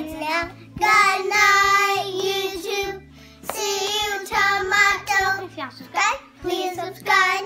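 Young children singing a sign-off together, holding long notes in drawn-out phrases with short breaks between them.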